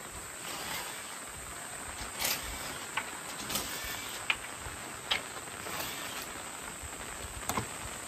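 Steady rain falling, an even hiss with scattered sharp drips and taps over it.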